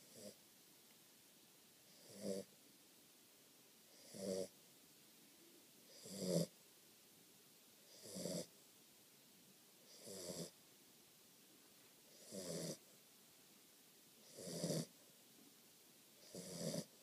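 Catahoula puppy snoring in its sleep, a short snore about every two seconds in an even rhythm, each one swelling and then stopping short; nine snores in all.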